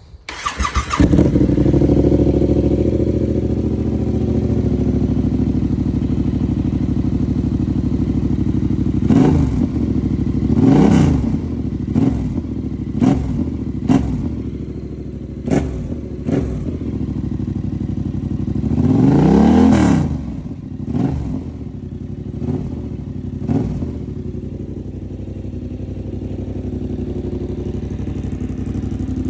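Yamaha R7's parallel-twin engine, breathing through a replica SC-Project slip-on exhaust with the dB killer fitted, starts right away and settles into idle. Through the middle it is blipped in about ten short throttle revs, one held longer than the rest, then it drops back to idle. Super loud.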